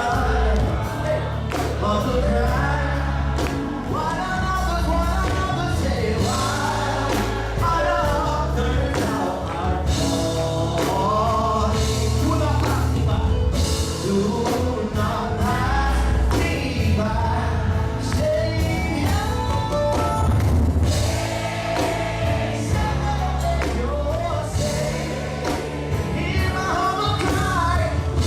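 Gospel worship song performed live: voices singing together over a band with bass and drums.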